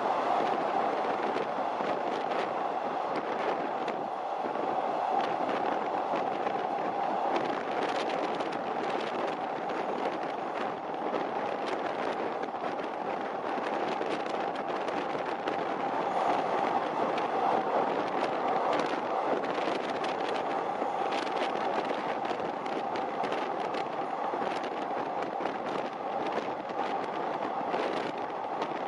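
Train running steadily along the track: a constant rumble and hum of wheels on rail, peppered with many sharp, irregular clicks and ticks.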